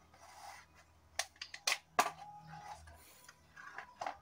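Cardboard shipping box being picked up and handled on a tabletop: a quick series of sharp taps and knocks with brief scraping, the loudest knock about two seconds in and another near the end.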